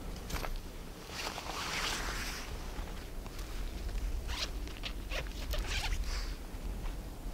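A backpack zipper being pulled: one long zip about a second in, then several short, quick pulls between four and six seconds.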